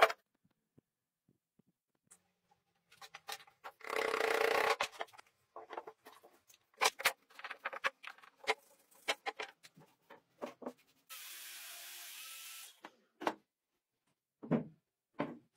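Hand work on wooden parts and a metal bar clamp: a string of separate knocks, clicks and scrapes, with a loud rub lasting about a second some four seconds in and a steady hiss for nearly two seconds around eleven seconds in.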